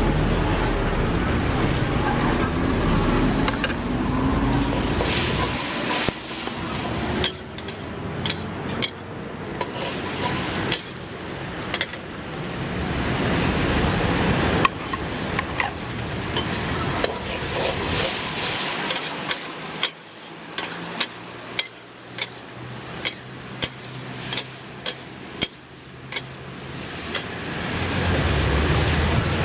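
Metal wok spatula scraping and clacking against a steel wok as a stir-fry is tossed, with a run of sharp clacks about one a second in the second half. A low rumble sits underneath.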